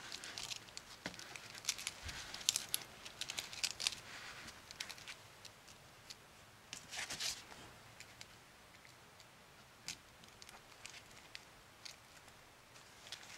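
Fresh lettuce leaf crinkling and crackling as hands lay it down and fold it over a slice of ham. Dense crackling in the first four seconds, another burst about seven seconds in, then scattered soft clicks.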